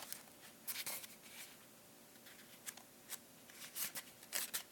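Faint rustling of paper: pages of a card deck's guidebook being leafed through, in a few short brushes about a second in and again in the second half.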